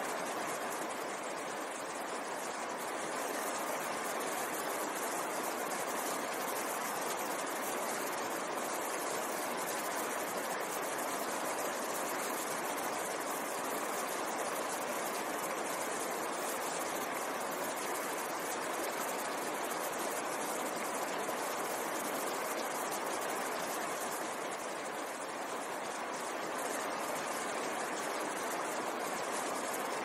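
Mountain stream rushing over boulders: a steady, even rush of fast water with no other sound.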